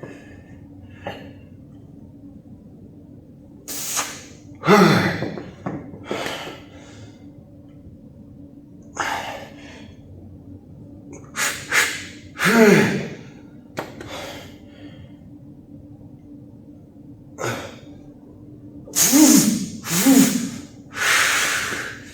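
A man's forceful exhales and short grunts, about a dozen at irregular intervals, several with a voice that drops in pitch.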